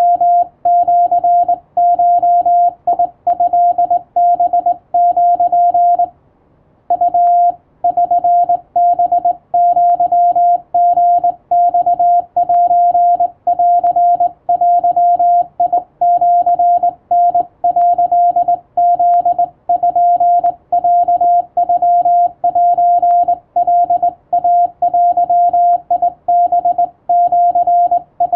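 Morse code sent by hand on a straight key, heard as a steady beeping sidetone keyed in dots and dashes of Japanese (wabun) Morse, with one short pause about six seconds in.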